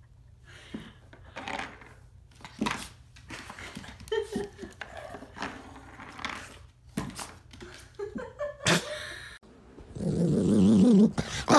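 Puppy making short growls and yips while it plays, with light knocks and clicks on a wooden floor. Near the end, loud warbling music starts.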